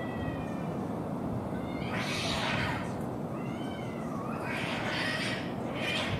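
Two male stray cats in a standoff over a female: a drawn-out wavering yowl tails off at the start, followed by harsh hissing bursts about two and five seconds in with a short yowl between them, and another hiss as they lunge into a grapple near the end.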